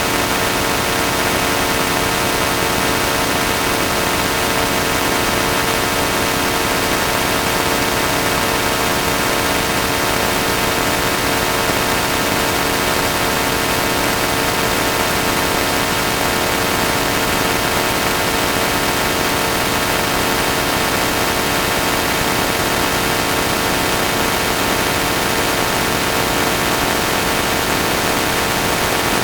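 Heavily processed, distorted electronic drone: a dense wall of steady buzzing tones over a hiss, running unbroken at an even loudness.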